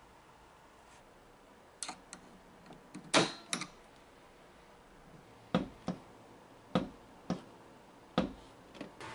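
About ten separate sharp metallic clicks and knocks from tools and parts being handled during starter removal work, starting about two seconds in, the loudest about three seconds in.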